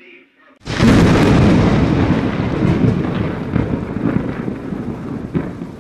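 Thunder sound effect: a sudden loud crack about half a second in, then a long rolling rumble with scattered crackles that slowly fades.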